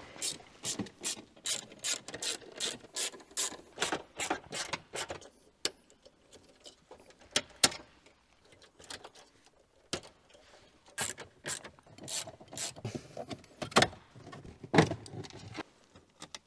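Sharp mechanical clicking from a BMW M2's center console being unfastened for removal: an even run of about three clicks a second for the first five seconds, then scattered clicks and a few knocks.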